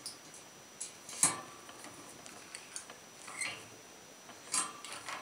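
Hand pop-rivet gun being squeezed to set a rivet through a bracket on a steel tube: a handful of scattered sharp clicks, the loudest about a second in.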